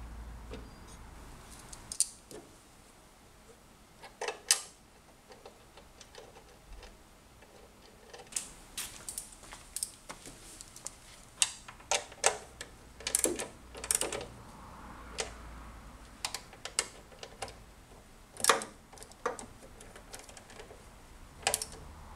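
Irregular metallic clicks and knocks as an ignition coil is fitted to its bracket and its clamp screw is done up with a hand tool.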